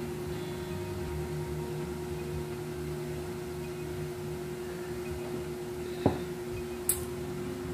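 A steady hum at one pitch runs under the scene. About six seconds in comes a single knock with a short ring, as a drinking glass is set down on the table, then a brief high click.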